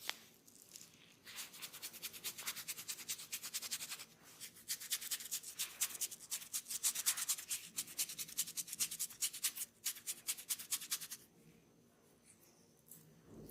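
Fast, rhythmic rubbing strokes of hands during a head and ear massage. They start about a second in and stop near the end.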